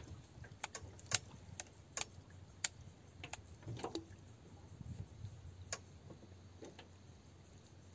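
Light, irregular clicks and taps from fishing rod and tackle being handled in an aluminium boat, about a dozen, bunched in the first half and thinning out near the end.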